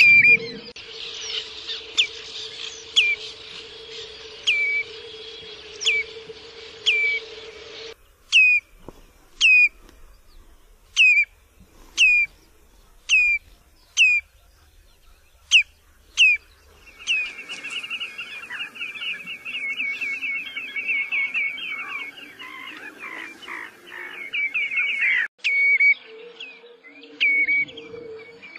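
Common redshank calling: sharp, piping whistled notes that fall in pitch, about one a second. Midway they give way to a fast run of repeated notes lasting several seconds, then single notes return. A steady low hum lies under the opening and the end.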